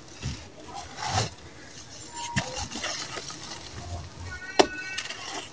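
Balls of sand-cement mix crushed and crumbled by hand: gritty crunching, with grains pattering down onto a loose sand-cement pile. One sharp snap comes a little past halfway.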